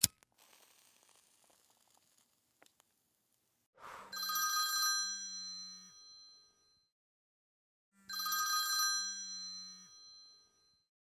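Telephone ringing twice, each ring about two and a half seconds long, the first starting about four seconds in: an incoming call. A sharp click comes at the very start.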